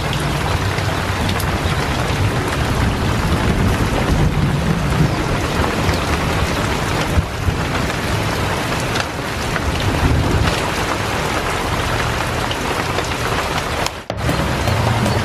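Heavy rain pouring onto standing water and a wet yard, a dense steady hiss of drops splashing into puddles. It cuts out briefly near the end.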